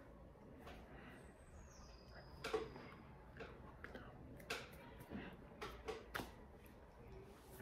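Faint lip smacks, breaths and scattered small clicks from a person mouthing words silently while signing, over low room hum.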